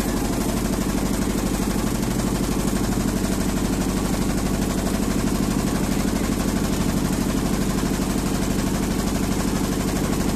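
Motorboat engine running steadily at a constant speed, with a rapid, even pulse.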